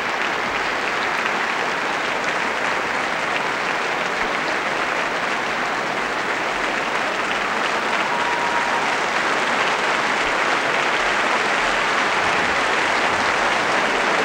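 Large concert audience applauding, a dense, even clatter of many hands clapping that grows slightly louder near the end.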